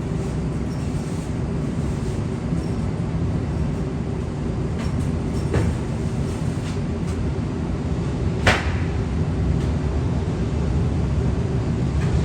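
Steady low rumble of jet aircraft engines, with a few sharp clicks, the loudest about eight and a half seconds in.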